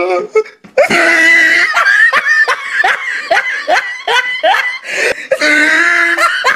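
A person laughing in a string of short bursts, about three a second, ending in a longer drawn-out laugh near the end.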